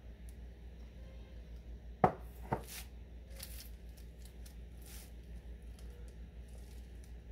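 Two sharp knocks about half a second apart, then the soft scraping strokes of a spatula spreading chocolate butter icing across a sponge cake, over a steady low hum.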